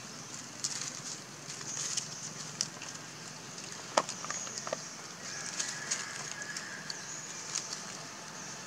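Dry leaf litter crackling and rustling under macaques as they move about and forage, with a sharp snap about four seconds in.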